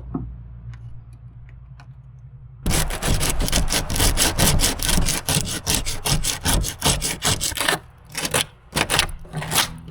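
A hand tool scraping quickly back and forth on the damaged fiberglass of a small boat's bow, cleaning out the broken area. A rapid run of strokes begins about two and a half seconds in and thins to a few separate strokes near the end.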